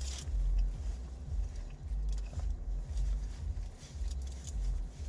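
Close-up chewing of a mouthful of panko-breaded meatball slider, uneven soft thuds with small wet mouth clicks, over a steady faint hum.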